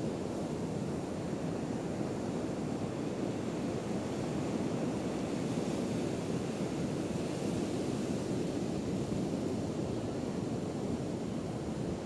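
Ocean surf: a steady rush of waves breaking and washing up the beach, a little louder midway through.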